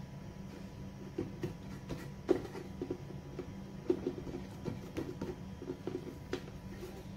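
Hands folding and pinching soft dough closed around a filling on a floured counter: scattered soft knocks, taps and rubbing over a steady low hum.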